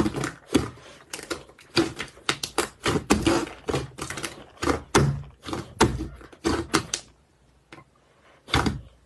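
Slime being pressed and squeezed by hand, giving rapid, irregular sticky clicks and pops. The clicks thin out about seven seconds in, with one more near the end.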